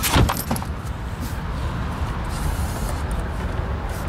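A few short knocks and rustles in the first half second from handling the trunk floor carpet over the spare-tire well, over a steady low rumble.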